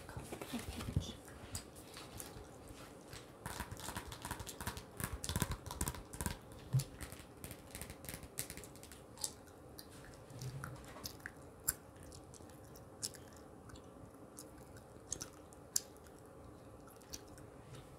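Gum chewing close to a microphone: wet smacks and clicks, coming quickly in the first several seconds and then more sparsely.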